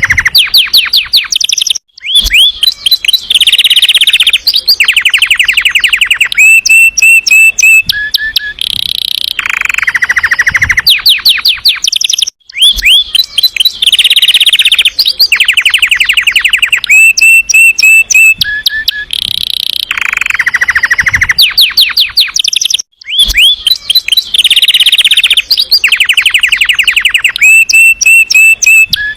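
Domestic canary singing loudly in fast rolling trills and sharp whistled notes. The same song sequence repeats about every ten seconds, each time after a short break.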